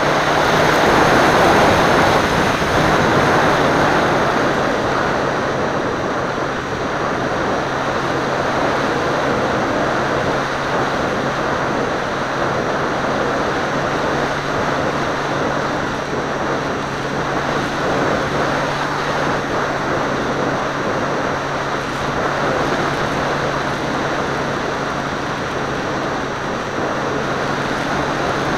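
Seawind seaplane in flight, heard from an onboard camera: a steady motor drone under a constant rush of wind over the microphone, loudest in the first few seconds.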